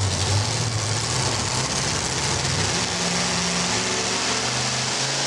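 Supercharged engine of a two-wheel-drive pulling truck idling hooked to the sled before its pull: a steady low running note that steps up slightly in pitch about halfway through.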